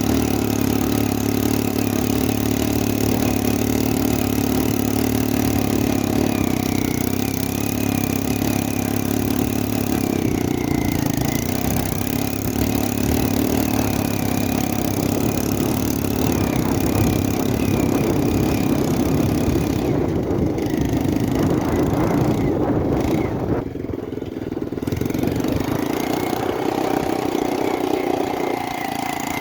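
ATV (quad bike) engine running steadily, its note shifting up and down with the throttle, with a short drop in loudness about three-quarters of the way through.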